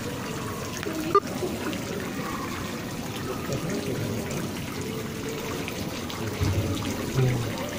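Water trickling and splashing steadily in a shallow koi pool as hands and fish stir the surface, with faint voices behind and one sharp click about a second in.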